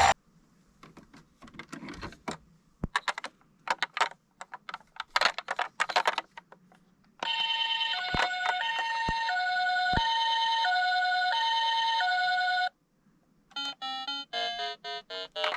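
Light clicking and clattering for the first several seconds. Then a toy ambulance's electronic hi-lo siren sounds for about five seconds, switching between a high and a low tone about once a second in the Japanese ambulance pattern, and stops suddenly. Near the end a short electronic jingle starts.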